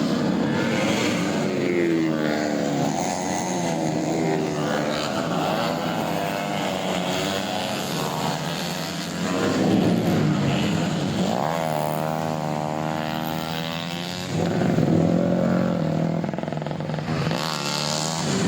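Tuned 125 cc four-stroke underbone motorcycle engine revving hard. Its pitch climbs and drops back several times as it runs up through the gears.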